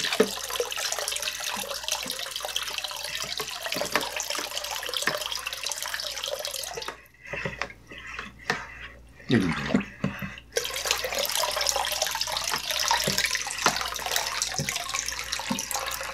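Water poured from a plastic pitcher into a plastic bucket of strawberry jam, splashing steadily to thin the thick jam into a wine must. About seven seconds in the pouring stops for a few seconds, leaving a few knocks, then it starts again.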